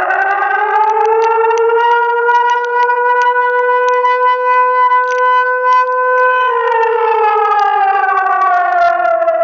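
Civil defence warning siren sounding during a public alarm test. Its pitch rises over about two seconds, holds a steady tone, then winds down from about six and a half seconds in.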